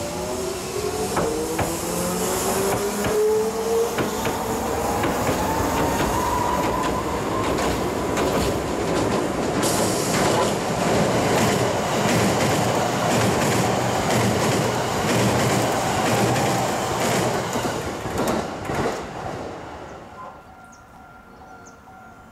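Electric multiple-unit train passing over a steel railway bridge. A motor whine rises in pitch for the first several seconds, then the loud rumble of wheels with rail-joint clacks takes over and fades away about 20 seconds in.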